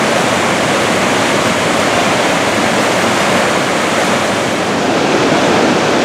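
Large river waterfall in full flood: loud, steady rushing of falling and churning water.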